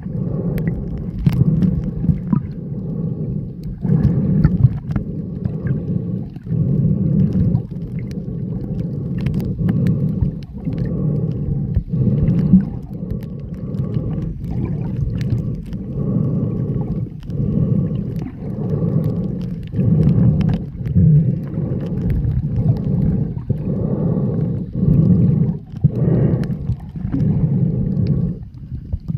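Muffled underwater noise picked up by a camera held under the sea while snorkelling: a low rumbling water sound that swells and fades about once every second or two.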